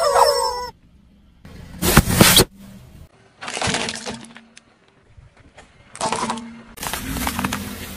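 Rubber squeaky chickens squealing as a car tyre presses on them, cut off under a second in. Then a series of cracks and crunches as the tyre crushes small plastic objects: four separate bursts with short gaps between, the loudest a sharp crack about two seconds in.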